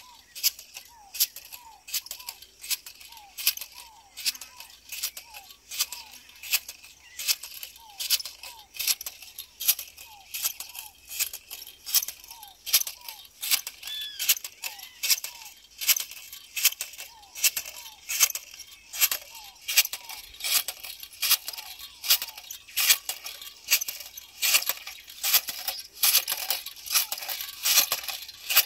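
Hand-held matraca jab planter clicking and rattling about once a second as it is jabbed into the soil and snapped open to drop corn seed, growing louder near the end.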